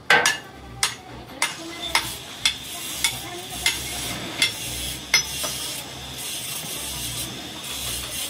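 Hand hammer striking the steel housing of a hydraulic jack during repair of its broken pin bush: about ten ringing metal-on-metal blows, a little under two a second, stopping about five seconds in.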